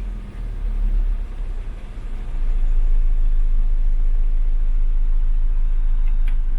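Hyundai i10 engine idling steadily, with a low rumble that gets louder about two seconds in; the idle has just been reset at the throttle stopper and is settling back to normal.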